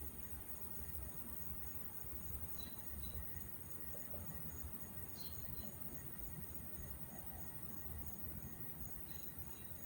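A high-pitched chirp repeating evenly, about three times a second, like a chirping insect, over a steady low rumble.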